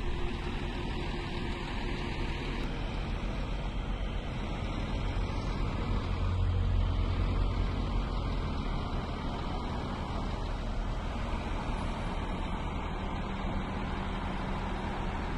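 Road traffic: car engines and tyre noise, with one car passing close as a low rumble that swells about halfway through and then fades.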